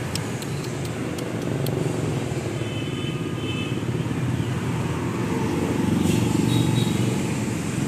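Steady low rumble of motor vehicle noise, with a few faint sharp clicks in the first couple of seconds.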